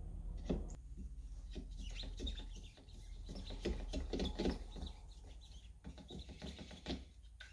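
A wooden stir stick scraping and knocking around the inside of a plastic mixing cup as epoxy primer and its activator are mixed, with many irregular short clicks and scrapes starting about half a second in.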